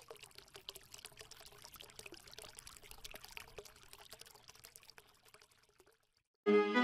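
Faint pouring or trickling water sound with small crackles, fading out about five and a half seconds in. Near the end, violin music starts suddenly and much louder.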